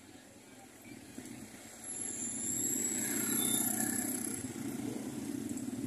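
Small motorcycle or motor scooter riding past close by: its engine hum and a high whine grow louder about two seconds in, are loudest a little after midway, then ease off slightly.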